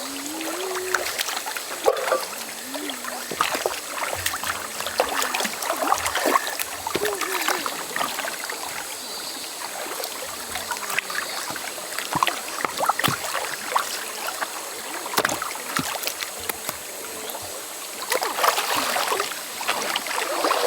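River water running and splashing, with scattered sharp clicks and knocks.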